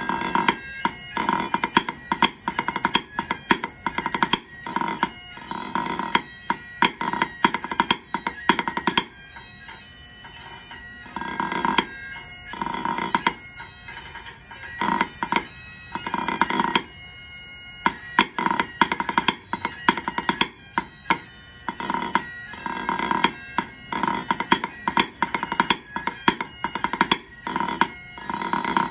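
Pipe band snare part played with wooden sticks on a rubber practice pad, as dense rapid clicks, over a recording of bagpipes playing a tune at about 81 beats per minute.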